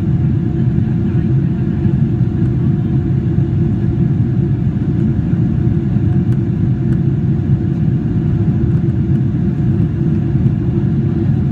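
Steady cabin roar inside a Boeing 777-300ER airliner from its GE90 engines and the airflow, a constant deep rumble with a faint steady hum above it.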